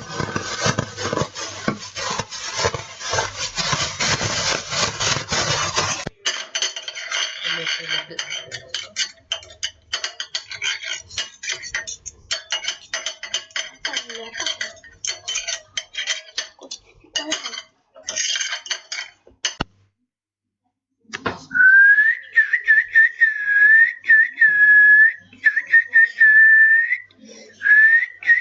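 A few seconds of dense noise, then a long run of clinks and clatters like dishes and cutlery. After a brief silence, a person whistles a tune of short, repeated held notes.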